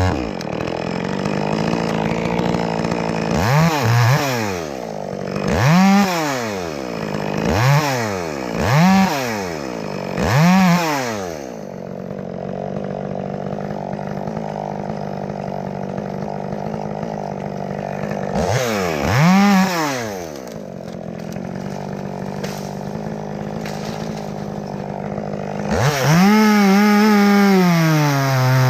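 Chainsaw revving up and down in quick repeated blips through the first ten seconds or so, then running at lower speed with one more rev about two-thirds through. It is held at high revs for the last few seconds.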